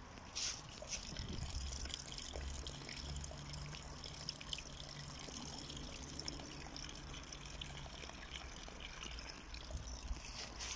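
A steady trickle of liquid splashing.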